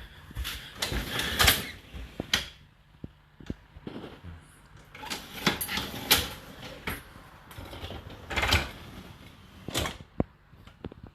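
Whirlpool WFO3P33DLXUK dishwasher being opened after its cycle, its racks handled with a series of clacks, rattles and sliding scrapes, with the dishes inside knocking.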